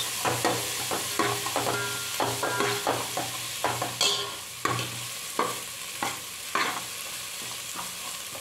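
Chopped onions frying in hot oil in an aluminium pot, sizzling steadily, while a steel ladle stirs and scrapes against the pot in repeated irregular strokes, with one louder clank about four seconds in.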